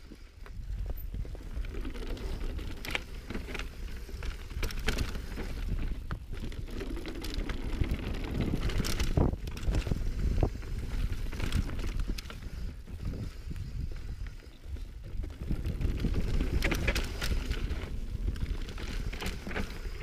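Mountain bike being ridden over rough trail, tyres rolling with frequent knocks and rattles from the bike over bumps, and wind buffeting the microphone.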